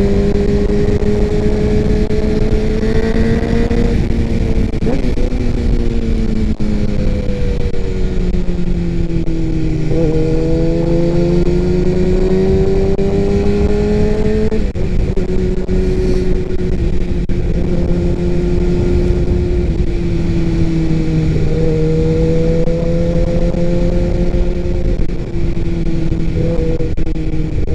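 Sport motorcycle engine running at a steady cruise under the rider, its note slowly rising and falling with throttle and dropping suddenly about fifteen seconds in as it shifts, over a constant rush of wind noise.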